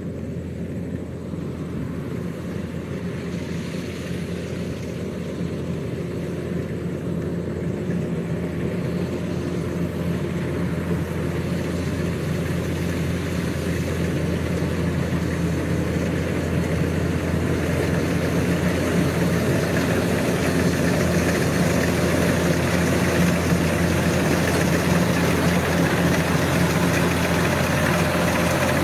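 Kubota DC93 rice combine harvester at work cutting ripe rice: a steady engine hum under the clatter of its cutting and threshing machinery, growing steadily louder as the machine comes closer.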